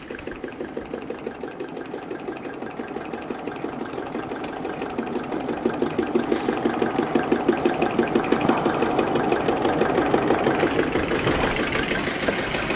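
Water-cooled Stirling hot-air engine running, a fast, regular mechanical clatter from its pistons and flywheel that grows louder over the first several seconds.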